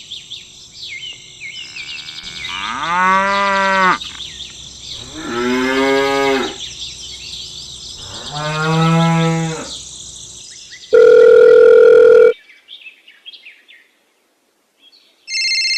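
A cow mooing three times, each moo lasting about a second and a half, over a faint high background. This is followed by a loud, steady electronic beep lasting just over a second, which cuts off sharply.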